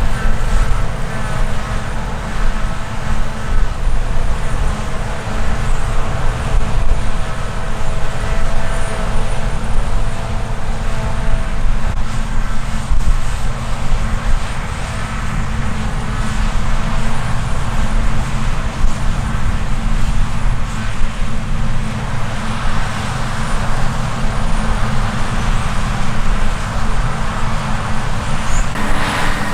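Heavy harvest machinery running steadily: a diesel engine rumble with a high whine over it that fades about halfway through.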